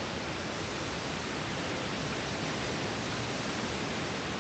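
Wind blowing across a phone's microphone: a steady, even hiss with no breaks.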